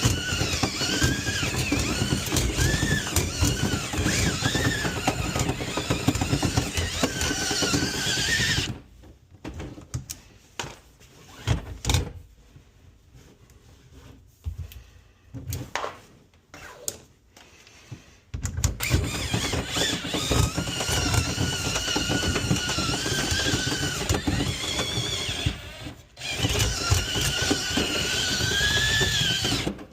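A motor-driven tool runs with a dense steady noise and a wavering whine. It stops after about nine seconds, leaving a pause of about ten seconds with scattered knocks and taps. It then runs again, with a brief break near the end.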